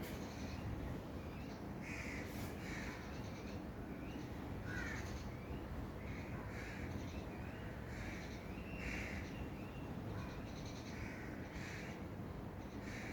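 Birds calling in short, harsh calls, often in pairs, repeating every half second to a second, over a steady low background hum.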